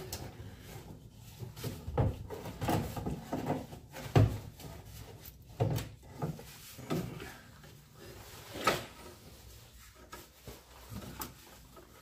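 Hands working in a Land Rover Defender's engine bay: irregular clunks, knocks and rubbing as parts and hoses are handled and pulled loose, the loudest knock about four seconds in.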